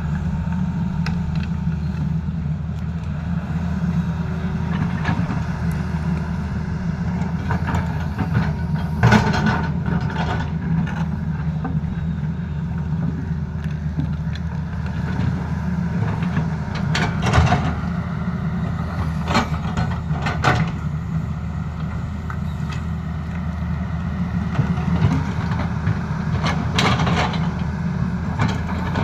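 Tata Hitachi excavator's diesel engine running steadily under load, with a scattering of sharp knocks from the machine at work.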